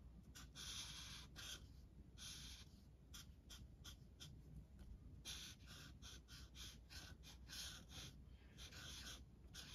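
Faint scratching of a thick black marker tip on paper: a run of short drawing strokes and a few longer ones.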